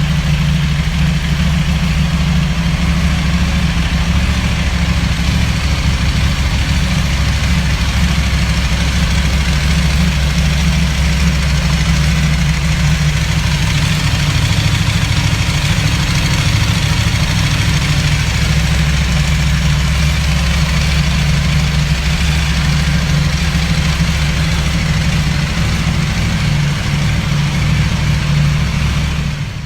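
KTM 1190 RC8's V-twin engine idling steadily through its exhaust, with an even low rumble and no revving; the sound fades out right at the end.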